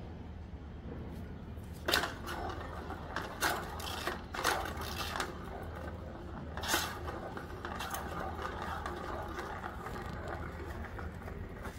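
Plastic ball rattling as it rolls around the circular track of a cat's track-ball toy, with several sharp plastic clacks, the loudest about two seconds in and again near seven seconds.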